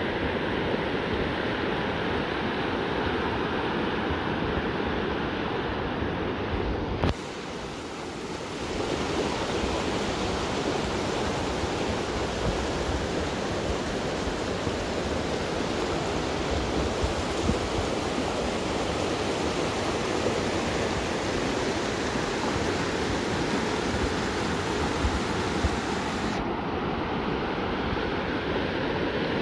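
Shallow river water rushing and babbling over rocks in small rapids, a steady wash of noise. About a quarter of the way in there is a click and the sound briefly drops and softens before the steady rush resumes.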